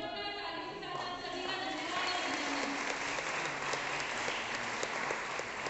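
A sung, drawn-out line of verse from a single voice at the start, then an audience applauding in a hall from about two seconds in, the clapping carrying on to the end.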